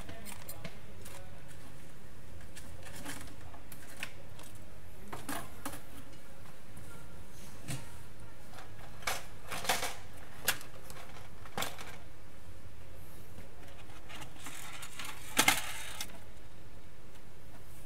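A handful of scattered clicks and clinks of small tools and parts being handled on a workbench, the loudest a sharp clack about fifteen seconds in, over a steady background hum.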